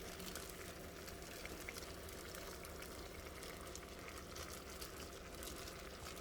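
Pot of plain water boiling on the stove, a faint bubbling with many small ticks and pops, over a low steady hum.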